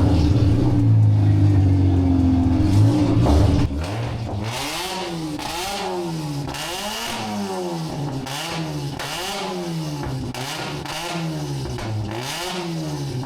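Mazda RX-8 rotary engine being revved hard. It is held steady and loud for about three and a half seconds, then drops and is blipped up and down roughly once a second.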